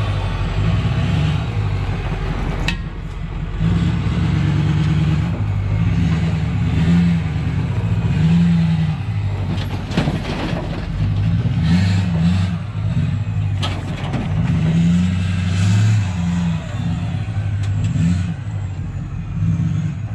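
Ford F-450 Power Stroke diesel engine revving up and down repeatedly as the heavy dually crawls over rocks. A few sharp pops or knocks come through, the kind of popping the owner puts down to a broken sway bar bushing.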